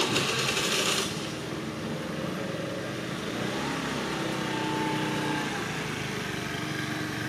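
Small scooter engine, a Honda Today's 50 cc single, running steadily at idle. A loud hiss opens the first second.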